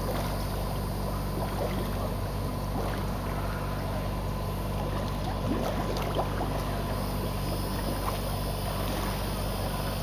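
Swimming-pool water splashing and bubbling at the surface as scuba divers swim through it, over a steady low hum.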